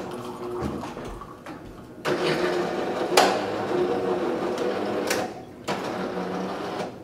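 Capresso C1000 super-automatic espresso machine whirring mechanically after the shot is poured, starting about two seconds in, with a few sharp clicks along the way. The sound is typical of the brew unit cycling at the end of a brew.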